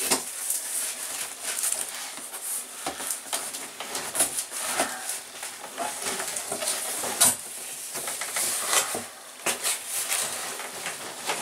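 Cardboard box flaps and bubble-wrap packing rustling and crinkling as they are handled, with irregular scrapes and a few sharper knocks.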